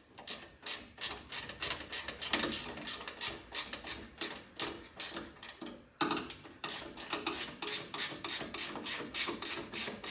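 Ratchet wrench with a half-inch socket clicking in quick, even strokes, about four a second, as it tightens the nuts on a U-bolt, with a short break about six seconds in.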